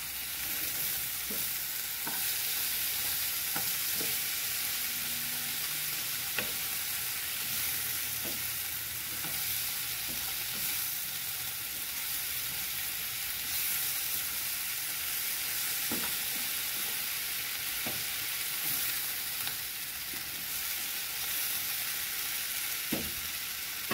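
Diced potatoes, sliced wieners, peppers and tomato sizzling steadily in a frying pan while a spoon stirs them, with short scrapes and knocks of the spoon against the pan every few seconds.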